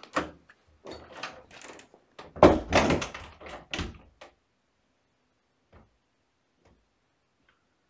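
A room door being opened and shut: a run of knocks and clatter over the first four seconds, with the loudest thud about two and a half seconds in.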